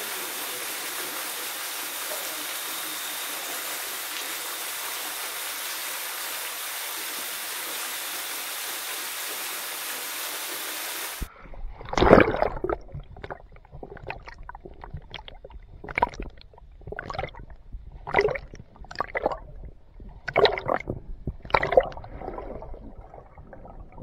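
Small waterfall splashing into a pool as a steady hiss. About eleven seconds in, the sound turns muffled as it is heard from underwater, with gurgling swishes about once a second from swimming strokes.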